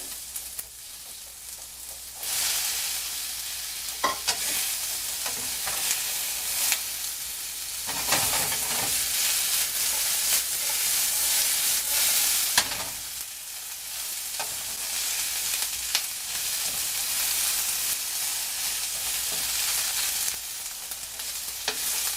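Sliced chicken, bell peppers and onions sizzling in a frying pan on medium-high heat while a paddle stirs them, with occasional taps and scrapes on the pan. The sizzle swells about two seconds in, as the cooked chicken goes back into the pan.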